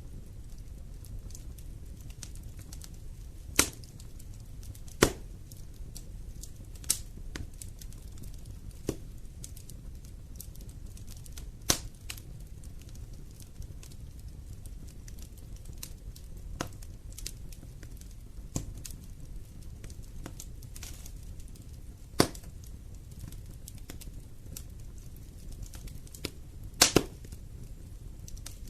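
Wood fire burning in a fireplace: irregular sharp pops and snaps from the burning logs, a few seconds apart, over a steady low rumble of the flames, with a quick double pop near the end.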